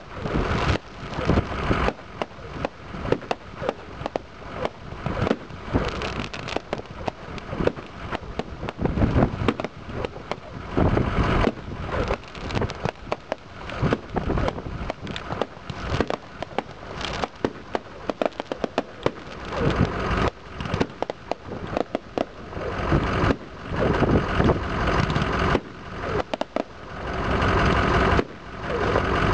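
Fireworks display: many shells and rising stars launching and bursting, with rapid, overlapping bangs, pops and crackling.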